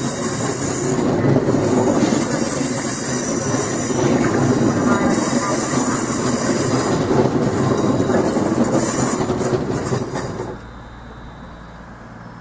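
London Midland multiple-unit passenger train running close past on the platform line, a loud rumble and rush of wheels on rail with a high hiss that swells every couple of seconds. About ten seconds in, the sound drops abruptly to a much quieter low hum.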